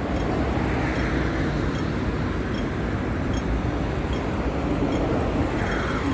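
Road traffic passing at a street crossing: a steady rush of engines and tyres, swelling as vehicles go by, with a faint high tick repeating about once a second.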